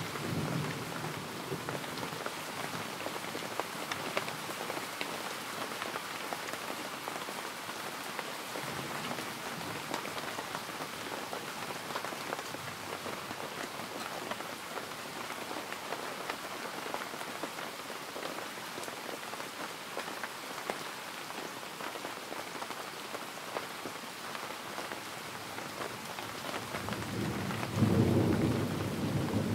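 Steady rain falling, with a low roll of thunder near the end.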